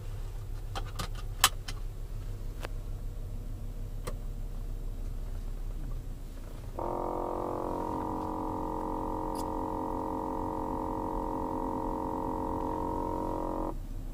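Loud steady 'brrrrr' buzz from the front passenger side of a 2007 Volkswagen Jetta, starting abruptly about seven seconds in and cutting off just before the end; a new air filter has not cured it. A low steady hum from the car runs underneath, with several sharp clicks in the first four seconds.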